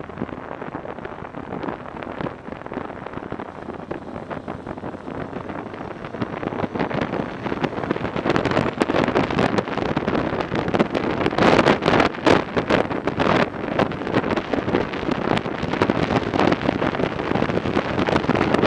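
Wind rushing and buffeting over a helmet-mounted microphone on a moving motorcycle, with the Yamaha XJ900 Diversion's inline-four engine running underneath. The buffeting grows louder and gustier about eight seconds in.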